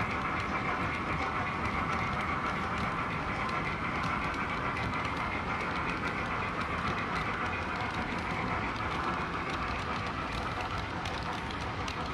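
H0-scale model freight train running past: the metal wheels of loaded flat wagons rolling over the track, a steady running noise with many light clicks, easing slightly near the end.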